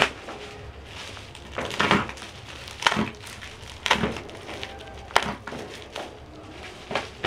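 Plastic bubble wrap and packing tape crinkling and rustling as a parcel is torn open by hand, in separate bursts about once a second, with one sharp click about five seconds in.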